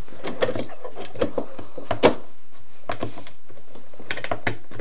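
Laser engraver's controller housing being slid along the frame's slotted extrusion rail on T-nuts: a run of small clicks and scrapes, the sharpest about two seconds in.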